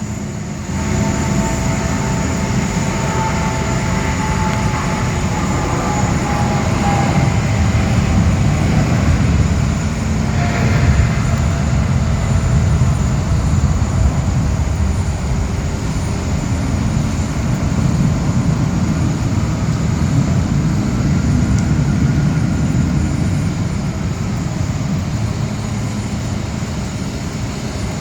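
Airbus A380 jet engines running during pushback: a steady low rumble with a faint high whine, and a few slowly falling tones in the first several seconds.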